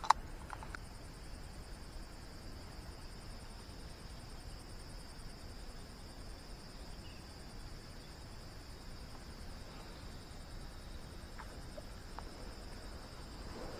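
Insects droning steadily at a high pitch, with a sharp click right at the start and a couple of faint ticks near the end.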